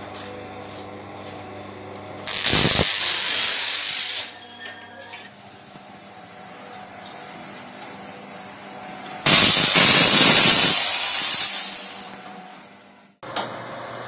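High-voltage arc on a transmission line: two loud bursts of harsh hissing noise, each about two seconds long and several seconds apart.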